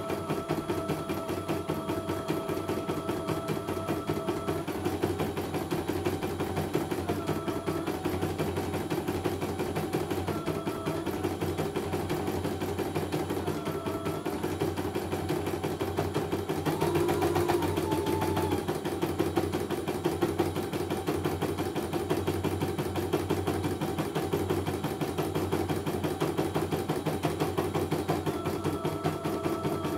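CNY computerized embroidery machine stitching a design: a rapid, steady run of needle strokes, with a whine above it that shifts in pitch every few seconds and goes briefly higher and louder about 17 seconds in.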